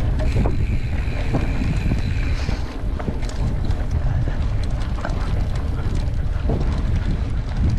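Wind rumbling on the microphone during a mountain bike ride, with scattered clicks and rattles from the bike on the trail. A faint high whine comes in for about two seconds near the start.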